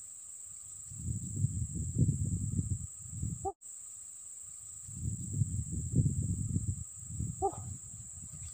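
Steady high-pitched drone of insects, with two spells of low, irregular rumbling, each lasting two to three seconds. The sound cuts out for an instant about three and a half seconds in.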